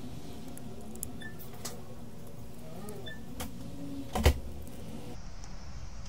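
An iPhone being handled and set down on a silicone repair mat: a few light clicks and one sharp knock about four seconds in, over a steady low room hum.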